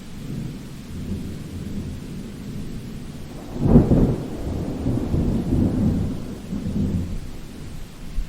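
Thunder in a summer thunderstorm: low rumbling builds, a sharp loud crack comes a little under four seconds in, and the thunder rolls on in waves before fading near the end, over a steady hiss of rain.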